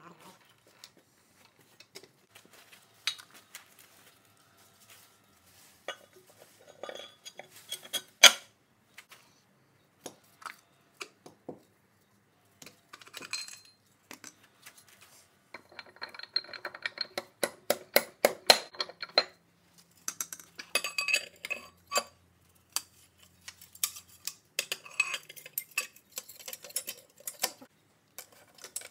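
Loose metal brake parts clinking and clattering as they are handled and fitted inside a Ford 4100 tractor's rear axle housing. The sound is sharp taps and short ringing rattles, with one loud clank about eight seconds in and busier clattering in the second half.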